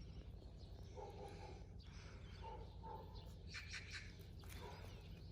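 Faint rural outdoor ambience with a few short, faint animal calls and brief high bird chirps in the middle.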